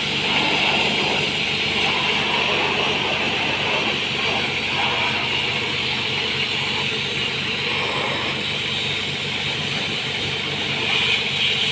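Pressure-washer jet hissing steadily as it sprays down a small tractor, over a steady low machine hum.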